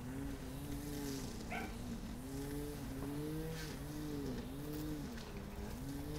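A motor drones without a break, its pitch rising and falling in a regular wave about once or twice a second over a steady low hum. A brief high chirp comes about a second and a half in.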